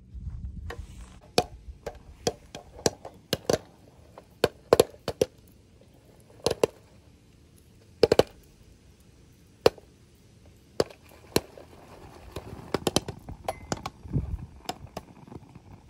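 Popcorn kernels popping inside a lidded aluminium mess tin on a gas stove: irregular sharp pops knocking against the tin, sparse through the middle and coming faster near the end.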